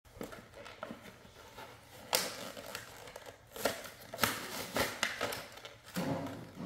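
Brown paper gift bag and plastic toy packaging rustling and crinkling as gifts are pulled out of the bag by hand, in several short bursts.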